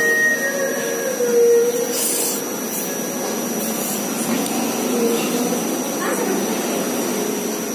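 Noodles slurped up near the start and then chewed, over a steady droning background noise with a thin high whine in it.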